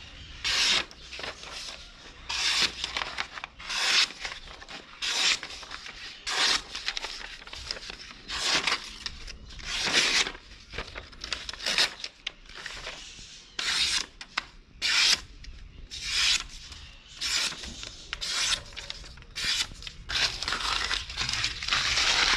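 A homemade knife blade ground from a saw blade slicing through sheets of paper again and again: a string of short, papery swishes, about one a second. This is the paper-slicing test of a freshly sharpened edge.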